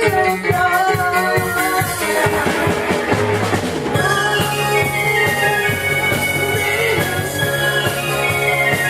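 Live band music: drum kit beating under pitched notes, a cymbal wash about two to four seconds in, then a run of notes stepping down in pitch.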